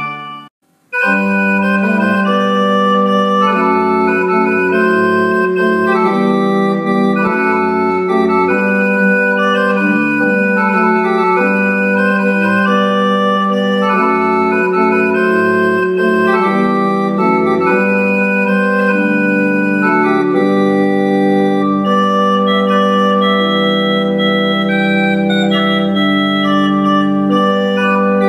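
Small historic English pipe organ, parts possibly as early as 1780, playing held chords over a moving bass line. A chord cuts off just after the start and, after a short pause, playing resumes about a second in.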